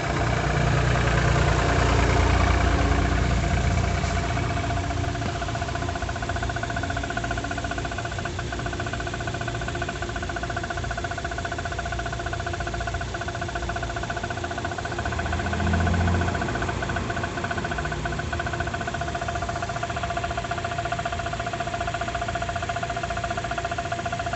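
Chery Tiggo 8 engine idling from cold, louder for the first few seconds and then settling to a steady idle with a brief rise about two-thirds of the way through. It carries a knock that the owner cannot explain, heard at cold start.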